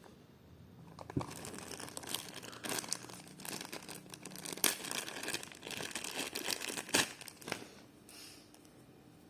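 Packaging crinkling and rustling as it is handled during an unboxing, with many sharp crackles. It starts about a second in and dies away shortly before the end.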